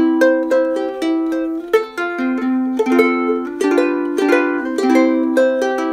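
Ukulele played solo, a run of picked single notes and small chords at a steady, unhurried pace, recorded through a Rode VideoMic Pro camera shotgun microphone.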